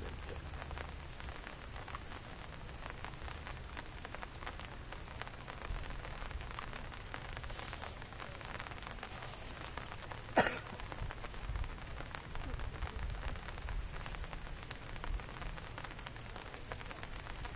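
Steady rain falling on water and reeds, a dense patter of small drops. One sharper, louder tap stands out about ten seconds in.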